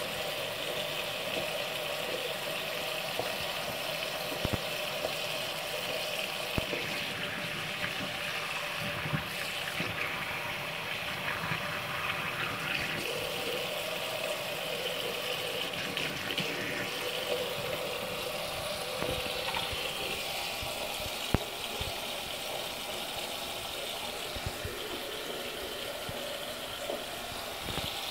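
Bathroom sink tap running a thin, steady stream of water into the basin and drain, with a few light knocks now and then.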